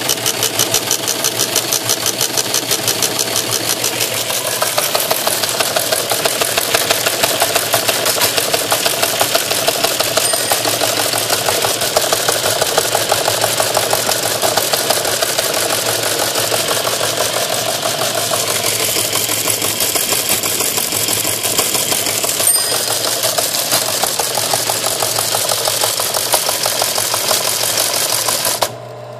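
Teletype Model 15 teleprinter, driven from a paper-tape reperforator, printing continuously: a fast, even mechanical clatter from the typing unit over a steady motor hum. The clatter stops abruptly near the end.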